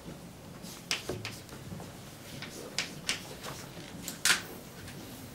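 Chalk striking and writing on a blackboard: a handful of short, sharp taps, the loudest about four seconds in.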